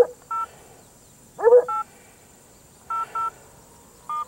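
A dog trapped down in a gully giving short yelping cries that rise in pitch and then hold, a couple of times with another starting at the end; they sound like it might be hurt. Between the cries come about five short phone keypad beeps.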